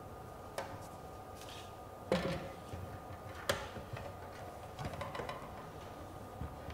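A few sparse, separate knocks and taps, each with a short ring, spaced about a second or so apart; the loudest comes about two seconds in.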